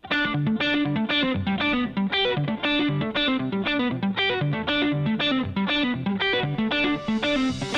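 Background music: an electric guitar picking a rapid, repeating pattern of notes, about four a second, starting suddenly, with a cymbal swell rising near the end.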